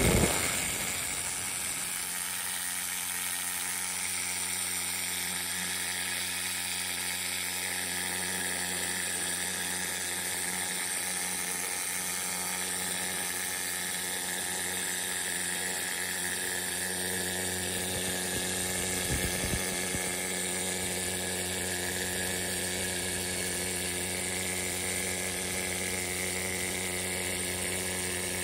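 Needle scaler running steadily, its needles hammering rust and scale off a cast steam-engine part. It is loudest right as it starts and surges briefly about two-thirds of the way through.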